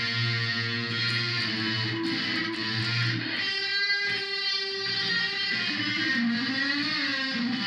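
Electric guitar played through a Korg A5 multi-effects processor, sustained notes and chords with the effect's feedback set low; a sweeping, comb-like shimmer runs through the tone near the middle.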